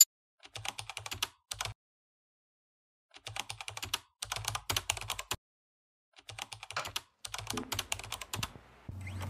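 Computer keyboard typing in three quick runs of keystrokes with silent pauses between them. Music comes in near the end.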